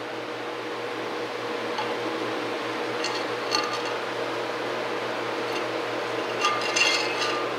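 Steel puller ring clinking lightly against threaded steel rods as it is lined up to slide onto them: a few short ringing clinks, once about three seconds in and a small cluster near the end, over a steady background hum.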